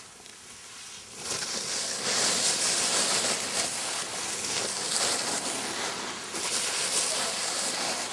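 Skis scraping over packed snow as skiers turn close by: a loud hiss that starts about a second in and swells and eases with the turns.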